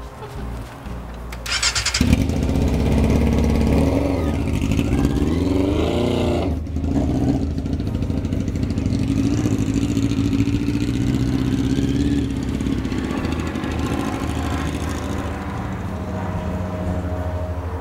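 Carbureted motorcycle engine drops out, is cranked over by the starter about a second and a half in and catches about two seconds in. It then revs and pulls away, rising in pitch with a break for a gear change, and its sound slowly fades as the bike rides off.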